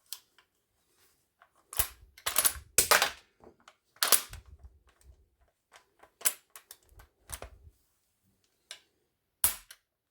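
Sharp mechanical clicks and clacks from handling an airsoft replica gun, coming irregularly, with a quick run of louder clacks about two to three seconds in and single ones later.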